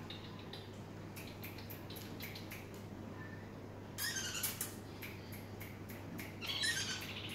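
Small yellow parakeets chirping: scattered short high chirps, with two brief louder bursts of chatter about four seconds in and again near the end.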